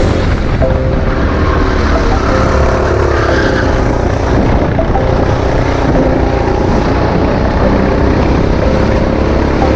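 Go-kart engine running at speed during a race, heard close up from a camera mounted on the kart, with its pitch shifting briefly a few seconds in as the kart goes through a corner.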